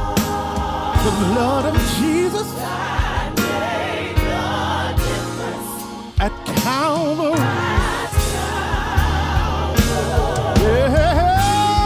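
Gospel singers performing a slow worship song over keyboard accompaniment, the voices wavering with vibrato and melismatic runs. Near the end a voice slides up into a long held note.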